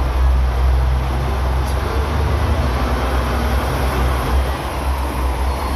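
Two-car KiHa 47 diesel railcar pulling slowly out of the station, its diesel engine running with a steady low hum.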